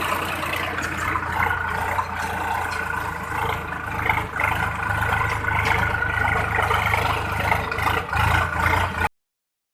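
Tractor engine running steadily under load while ploughing, then cutting off abruptly near the end.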